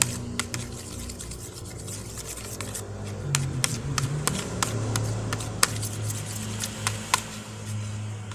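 Homemade glue slime, activated with detergent mixed in water, being squeezed and kneaded by hand in a container: irregular wet clicks and pops, several a second, a few of them sharper, over a low steady hum.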